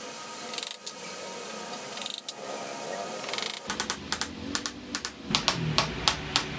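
Light taps of a small hammer on a pin fixing a metal nameplate to a lathe gear-housing part, in three quick clusters about a second and a half apart. Rock music with drums and electric guitar comes in about halfway and takes over.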